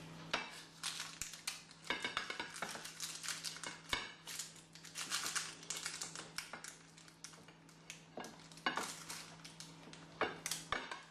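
A metal meatloaf tin clattering and scraping against a ceramic plate, with baking paper rustling, as a cooked meatloaf is tipped out of the tin onto the plate. The clatters and rustles are irregular, with sharper knocks about four seconds in and again near the end, over a steady low hum.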